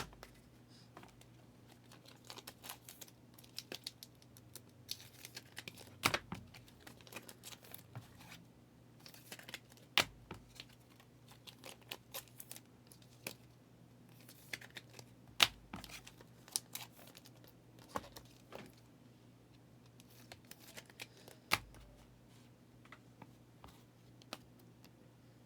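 Trading-card pack wrappers crinkling and tearing and cards being handled, with scattered rustles and a few sharp taps.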